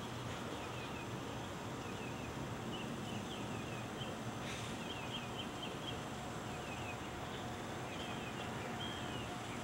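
Small birds chirping in short, quick repeated calls over a steady background hiss of outdoor air.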